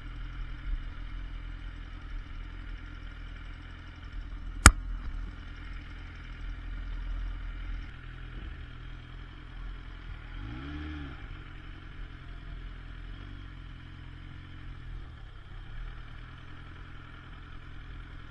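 Motorcycle engine idling at a standstill, with a single sharp click about a third of the way in. A little after halfway the engine revs up and back down as the bike pulls away, then runs on steadily at low speed.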